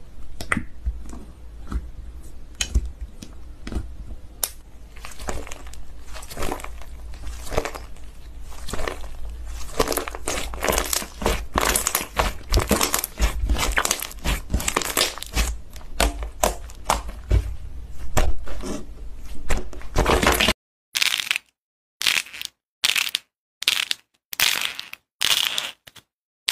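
Slime being squeezed and poked by hand, a dense crackling, crunchy stream of small pops. About 20 seconds in it changes to short separate squishes roughly twice a second, with dead silence between them.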